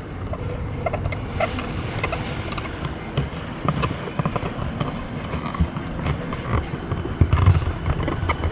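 Bicycle riding over brick pavers: a steady tyre rumble with the bike rattling in many small knocks, and a louder run of thumps about seven seconds in.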